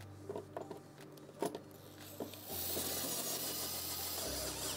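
A few light clicks of a screw and bit being set against the panel, then a DeWalt cordless screwdriver runs for about two seconds, driving a bracket screw, and stops.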